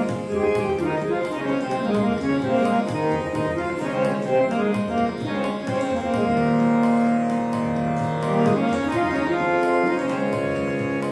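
Indian reed organ playing a natyasangeet melody: quick ornamented runs of sustained, reedy notes, with a steadier held passage a little past the middle.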